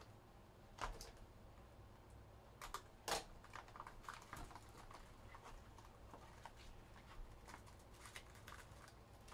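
Faint, scattered clicks and short rustles of cardboard and wrapping as a box of hockey trading cards is handled and opened, with two slightly louder rips or snaps about one and three seconds in.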